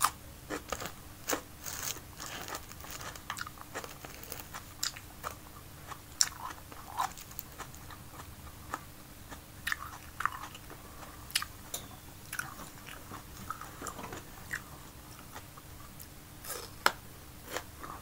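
Close-up chewing and biting of red bell pepper strips, with irregular crisp crunches and mouth clicks.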